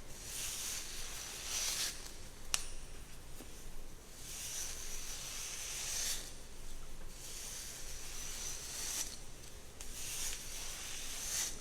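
Hairbrush drawn through hair in long, repeated strokes with short pauses between them. A single sharp click comes about two and a half seconds in.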